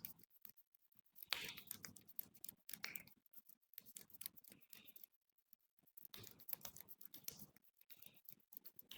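Fingers working through hair and over the scalp in a head massage: a crackly rustle of many small, irregular scratches, coming in uneven clusters with brief pauses.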